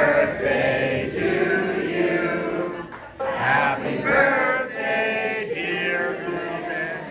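Several voices singing together in chorus, with a short pause between phrases about three seconds in.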